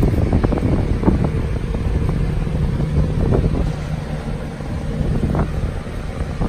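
Rumbling handling noise and scattered knocks as Labrador puppies jostle against a phone held close to them, with a low steady hum from about two seconds in until near the end.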